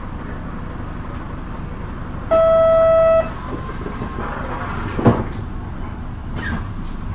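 Steady low rumble of a bus running, with one loud, steady tone lasting about a second about two seconds in, and a sharp knock about five seconds in.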